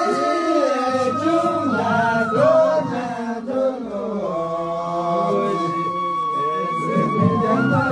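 Unaccompanied group singing in a chant-like melody, with a long high note held from about four seconds in until near the end.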